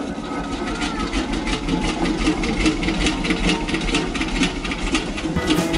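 An engine running with a steady, rhythmic chugging at about three to four beats a second.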